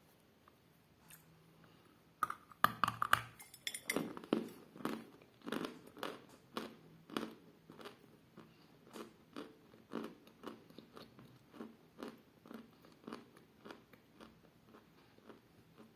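A piece of chalk bitten off with a short, crackling crunch about two and a half seconds in, then chewed steadily, about one and a half chews a second, the crunching growing softer as the chalk breaks down.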